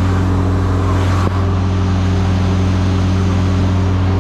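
Large engine running steadily at constant speed: a loud, even drone, with one brief faint click about a second in.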